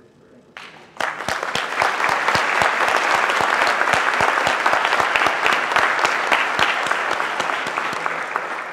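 Audience applauding: the clapping breaks out about a second in, holds steady, and begins to die away near the end.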